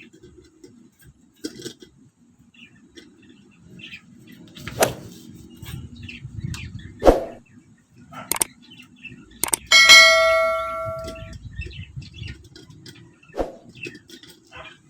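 Scattered clicks and knocks of the electric kettle's parts being handled, then one metallic clang about ten seconds in that rings and dies away over a second and a half.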